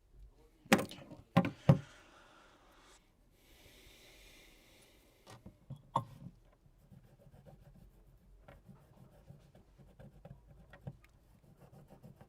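Hand tools knocking and scraping against a phone frame during screen removal: three sharp clacks in quick succession, a hissy scrape about three seconds in, another knock near six seconds, then light scratching and rubbing.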